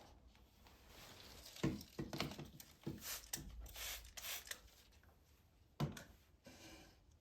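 Kitchen handling sounds while preparing ice cream: a sharp knock, a run of clicks, rustles and scrapes from utensils and containers, then another knock near the end.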